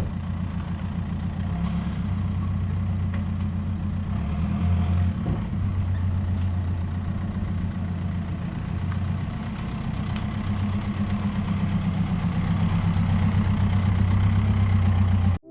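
An engine idling steadily with a low, even hum, growing slightly louder toward the end before cutting off abruptly.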